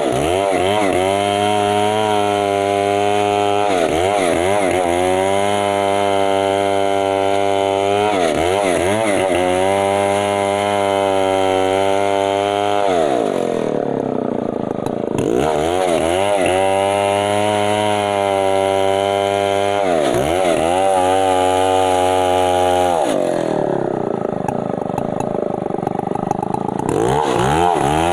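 Stihl 070 two-stroke chainsaw running at high revs, its pitch dipping and recovering every few seconds as it loads up in the cut. The revs fall off for longer twice, about halfway through and near the end, before climbing back.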